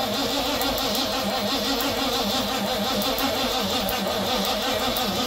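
Late-1970s Mercury Monarch engine being cranked over by its starter in a steady, even rhythm without firing, after sitting 20 years. The fuel line is disconnected into a container to test whether the fuel pump pumps.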